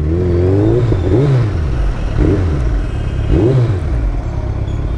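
Suzuki Hayabusa's inline-four engine through a loud exhaust, running at low speed with several short throttle blips, the revs rising and falling each time.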